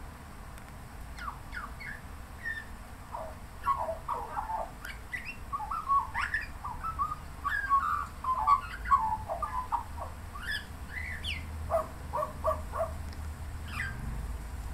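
Australian magpie warbling: a long run of quick, varied notes and pitch glides that stops shortly before the end. A low rumble grows near the end.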